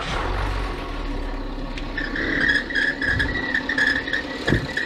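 Citroën C6 engine running just after starting, heavy at first then settling, with a high squeak that comes in about two seconds in and pulses steadily: something in the engine bay has coolant on it where it shouldn't, making it squeak. A short knock near the end.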